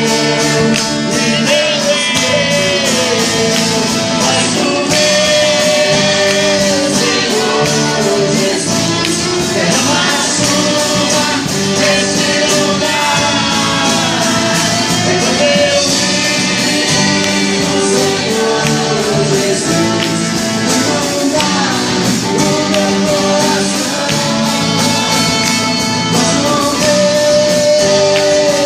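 Live gospel worship music: a vocal group singing a praise song in Portuguese with band accompaniment over a steady beat.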